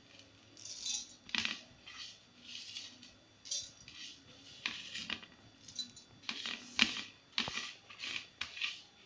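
Soft kitchen handling noises: a string of short scrapes and light clinks of utensils and steel vessels being moved, with one sharper tap about two-thirds through.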